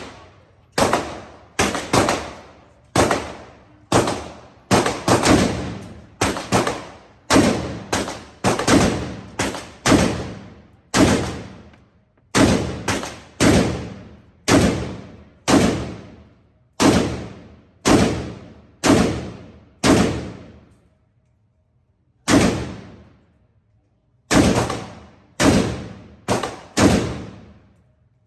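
About thirty single shots from a 7.62×39 AK-pattern pistol, fired semi-automatically in a steady string about half a second to a second apart, with one pause of about two seconds partway through. Each shot is loud and echoes for about a second.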